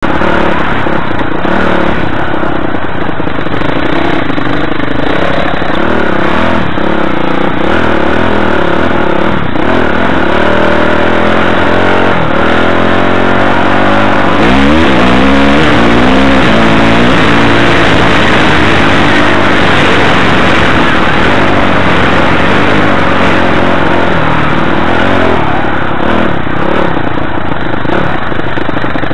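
Off-road dirt bike engine running loud and close, its revs rising and falling as the bike rides a rough trail. About halfway through, the engine revs up with a climbing pitch.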